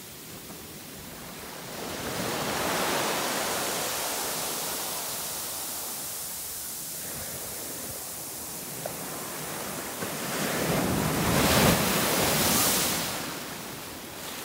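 Small ocean waves breaking and washing up a sandy beach. The surf swells twice, once about two seconds in and again, louder, a few seconds before the end.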